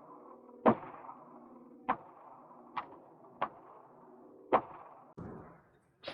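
Five gunshots at irregular intervals at an indoor range, each a sharp crack with a short echo.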